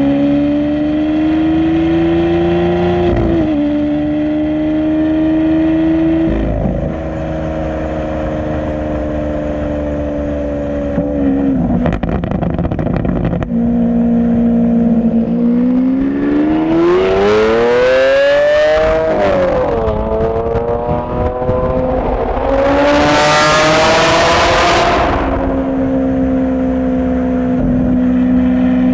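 The straight-piped 6.5-litre V12 of a 2016 Lamborghini Aventador SV pulling through its gears, its pitch climbing and then dropping sharply at each upshift, about three times in the first dozen seconds. A harder rev climbs steeply past the middle, and a few seconds later comes the loudest, harshest stretch. After that the engine settles to a steady cruise.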